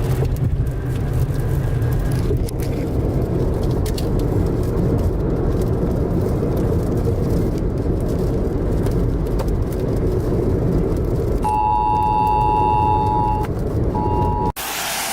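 Steady low rumble of wind and vehicle noise. About eleven and a half seconds in, a two-note alert tone sounds for about two seconds, then again briefly, matching the Emergency Alert System attention signal used for tornado warnings, before the sound cuts off abruptly.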